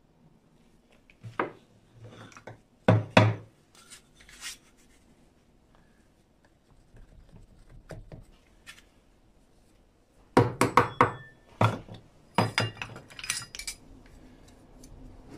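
Sharp knocks and clinks of a metal tube and a wooden dowel cutting a hole through the packed sand of a casting mold. A few knocks early on, a quieter stretch, then a quick run of knocks and clinks about ten seconds in.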